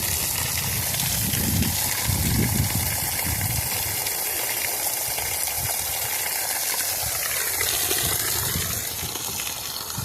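Water rushing and gushing steadily, with irregular low rumbling underneath. A brief wavering tone sweeps down and back up about eight seconds in.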